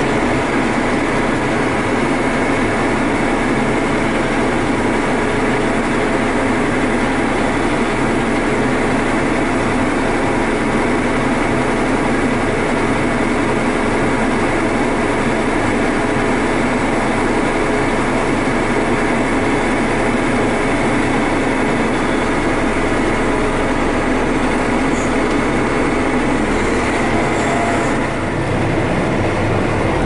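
John Deere 9410R tractor heard from inside its cab while driving: a steady, loud drone of engine and running gear with several held tones. The low end shifts a little near the end.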